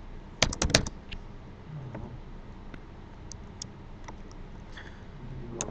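Computer keyboard being typed on: a quick run of about four keystrokes about half a second in, then a few lighter, scattered key taps.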